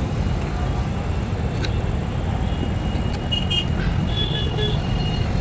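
Steady low background rumble, with short high tones about three and four seconds in, and a faint click from a screwdriver driving in the screws that hold a drill's new field coil.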